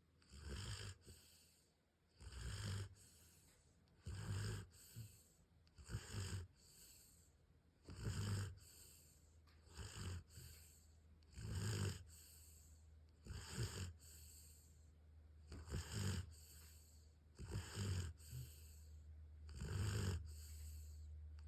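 Snoring: a loud, rasping snore about every two seconds, often as two quick pulses, with quiet breathing between. A steady low hum comes in near the end.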